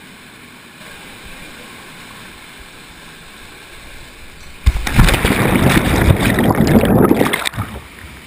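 Stream water running steadily through a narrow rock chute. About four and a half seconds in, a sudden loud, churning water rush lasting about three seconds as a canyoner slides down the chute and plunges into the pool, with water over the microphone.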